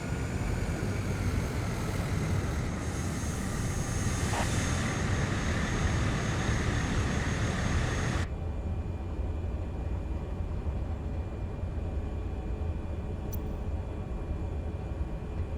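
Cessna 208 Grand Caravan's PT6A turboprop engine and propeller running steadily, heard from the cockpit, with a thin high whine over the noise. About eight seconds in the high-pitched part of the noise drops away suddenly and a lower, duller engine sound carries on.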